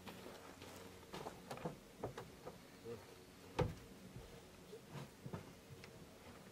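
Quiet background with a few faint, scattered taps and clicks, the sharpest about three and a half seconds in.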